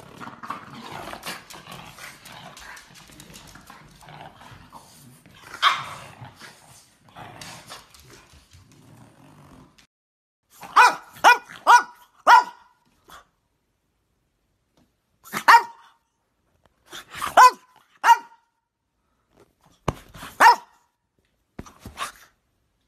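French bulldog barking in short, sharp play barks: a quick run of four, then single barks and pairs with pauses between them. Before the barking, quieter scuffling from two French bulldogs wrestling over a toy.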